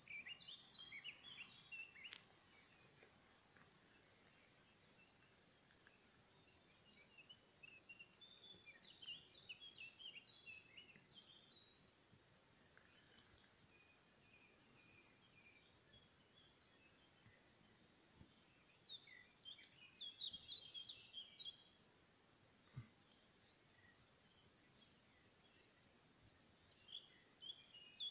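Faint, continuous high-pitched insect trill, steady and finely pulsed, with scattered short bird chirps in a few brief clusters.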